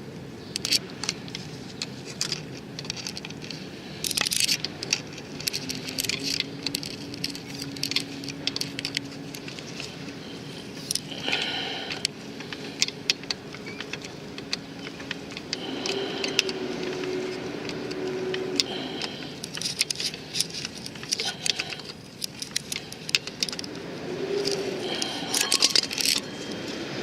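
Metal hand tools and small brake caliper parts clinking and rattling in irregular sharp clicks, with a steady low hum for several seconds in the middle.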